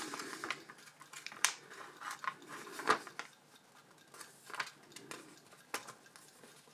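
Sheet of paper being handled, rustling softly with a few sharp crinkles; the loudest crackle comes about three seconds in.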